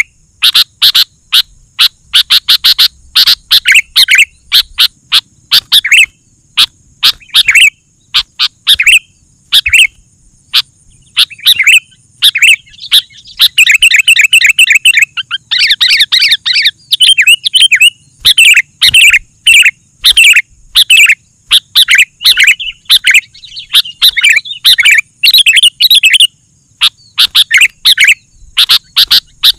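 Sooty-headed bulbul (kutilang) singing loudly and continuously: quick runs of bubbly, chirping phrases with short gaps, thickening into fast chatter about halfway through.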